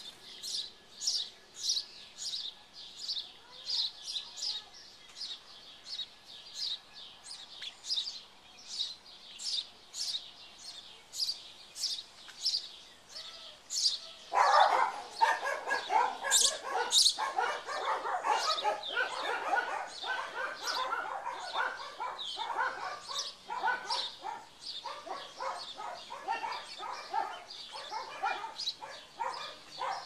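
House sparrows at a nest box: high chirps repeated about twice a second, joined about halfway through by a loud, rapid chattering, the nestlings begging inside the box as the parent feeds them at the entrance hole.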